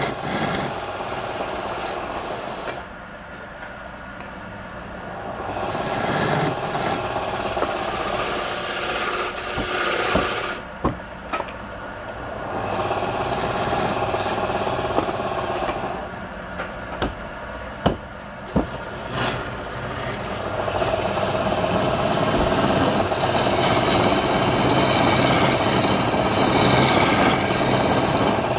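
Hand chisel cutting a wooden spindle turning on a lathe: a scraping, rasping cut that comes and goes as the tool is pressed in and eased off. There are a few sharp ticks in the middle, and the cut grows louder and steadier near the end.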